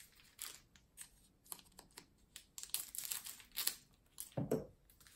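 Scissors snipping open plastic trading-card pack wrappers, the wrappers crinkling: a string of short, sharp crackles and snips, with a duller thump near the end.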